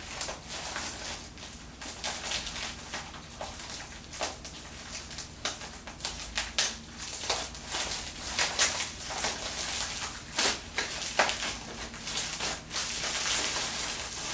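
Clear plastic wrapping on a small potted succulent crinkling and crackling as fingers work at it: irregular sharp crackles, with a longer rustle near the end.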